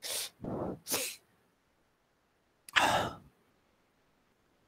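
A man's breathy non-speech vocal sounds: a few short breaths in the first second, then a louder, sharp breath-like burst about three seconds in.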